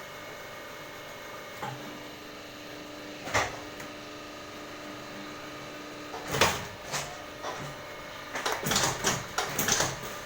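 Water-gallon cap moulding machine running with a steady hum. A clunk comes about three seconds in and a louder one about six seconds in, then a quick run of mechanical knocks near the end.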